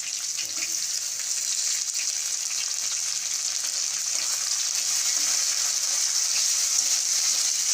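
Chopped onion, green chilli and freshly added tomato sizzling in hot oil in a kadai: a steady frying hiss that grows slightly louder.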